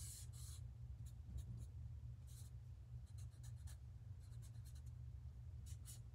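Black marker drawing on paper: a string of short, faint, scratchy strokes as lines are traced, over a steady low hum.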